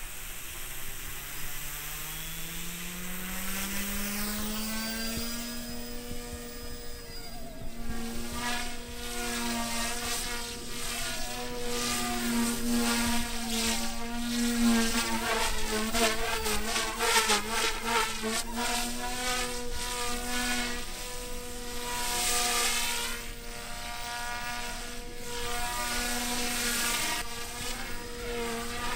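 OMP Hobby M1 micro electric RC helicopter spooling up, its pitch rising over the first few seconds, then running at a steady head speed. The sound swells and fades as it flies around.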